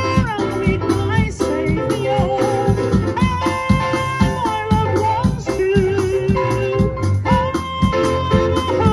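Live band playing through PA speakers: a man singing a held, wavering melody into a microphone over electric keyboard chords and a steady drum-kit beat.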